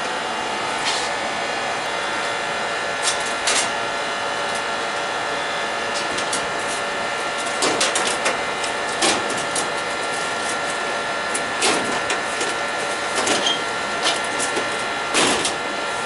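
Steady mechanical hum of a running gas heating appliance, holding several fixed tones, broken by short clicks and knocks at irregular moments, more of them in the second half.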